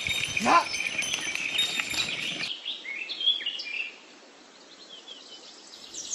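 Many birds chirping, with one short call that rises and falls in pitch about half a second in. About two and a half seconds in the sound cuts to a quieter stretch of sparse chirps, and the dense chirping returns near the end.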